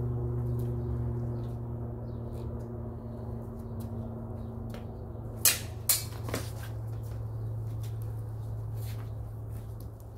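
Practice broadswords clashing: two sharp clacks about half a second apart, then a fainter third, over a steady low hum.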